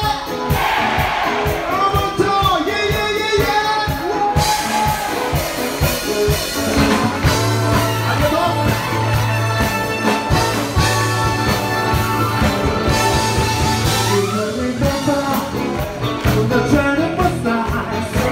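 Live band music with singing and a steady beat, with the crowd clapping along.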